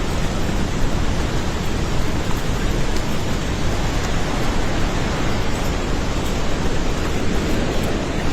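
Loud, steady rushing of a flooded river's water, even and unbroken, the sound of a monsoon torrent in spate.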